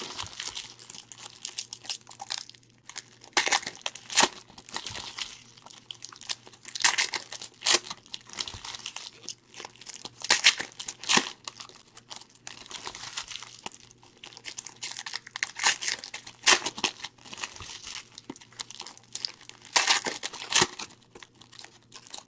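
Foil wrappers of 2014-15 Prism basketball card packs being torn open and crinkled by hand, in irregular crackling bursts.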